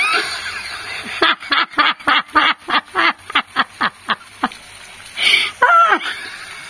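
Domestic ducks quacking in a rapid run of short calls, about five a second, each quack dropping in pitch; after a short pause a couple more quacks come near the end.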